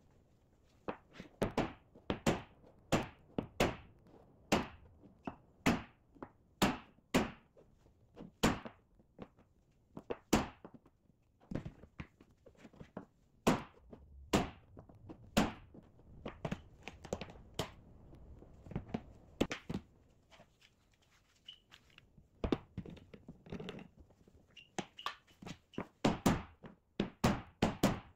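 Hammer striking a wooden tapping block laid on a clamped oak tabletop, knocking the glued-up boards level: repeated sharp knocks at an irregular pace, roughly one or two a second, with a short lull past the middle and quicker, louder strikes near the end.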